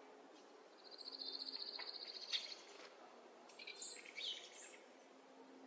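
Small birds calling outdoors: a fast, high trill lasting about a second and a half, then a few short high chirps about four seconds in.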